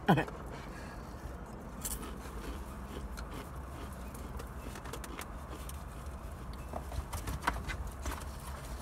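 Faint clicks and rustles of fried chicken and its containers being handled and eaten in a car, scattered over a steady low hum.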